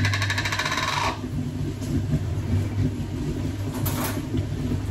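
A glass jar of dried oregano being handled: a rapid, even run of fine clicks lasting about a second. A low steady hum continues underneath, with a light knock about four seconds in.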